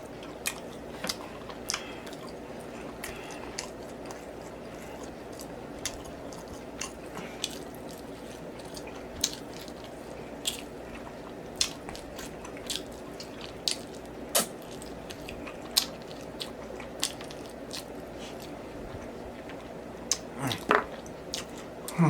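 Close-up chewing and lip-smacking of saucy barbecued baby back ribs, sharp wet smacks coming about once a second over a steady low hum.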